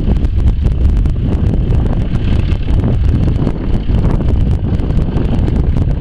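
1956 International B-250 tractor's four-cylinder diesel engine running as it drives with the plough lifted, heavily buffeted by wind on the microphone.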